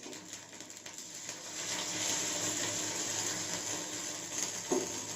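Water poured into a hot pan of oil tempered with mustard seeds, curry leaves and dried red chillies, sizzling with a steady hiss that builds over the first couple of seconds.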